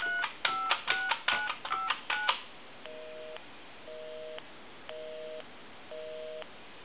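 Touch-tone dialing from a repaired Mickey Mouse telephone: a quick run of about nine two-note keypad tones over two seconds. The line's busy signal follows, a low two-note beep pulsing about once a second, because the phone is calling its own line. The dialing shows the phone now dials out correctly.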